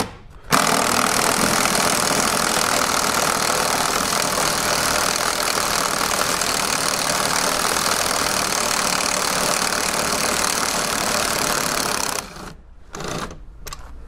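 Impact wrench hammering steadily on a seat-belt anchor bolt that is held tight with threadlocker, working it loose. It stops about twelve seconds in, and a short second burst follows.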